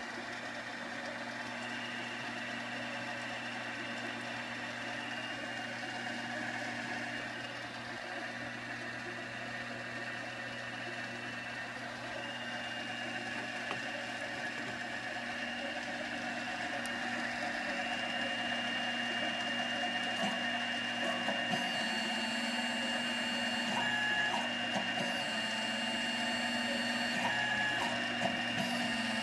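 7x12 CNC mini lathe running with its spindle turning: a steady motor hum with a high whine. It grows a little louder in the second half, where a higher whine from the stepper drives comes and goes as the tool makes threading passes for a 10-24 thread.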